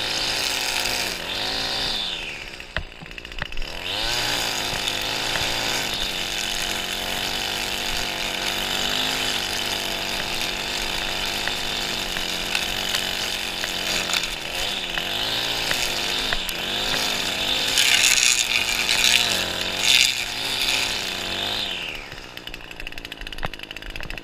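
Echo two-stroke string trimmer running under throttle, its engine pitch rising and falling as it works. The revs drop briefly about three seconds in, and the cutting sound turns harsher for a few seconds near the end.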